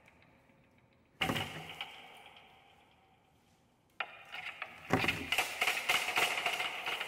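Wooden-and-brass mechanical sound objects (wooden spools on a brass rod, drawing threads) set going: a sudden rattling burst about a second in that slowly dies away, then another start at about four seconds that builds into a dense, busy rattle of many small clicks.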